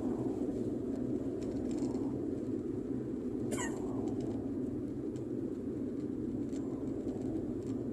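A car driving along a paved road: steady engine and tyre noise. A brief high squeak that falls quickly in pitch comes about three and a half seconds in.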